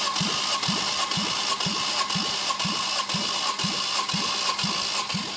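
Volvo B5254T6 2.5-litre five-cylinder engine being cranked over on its starter for a compression test, a steady whine with an even pulse about twice a second. The gauge on the third cylinder climbs to about 13 kgf/cm².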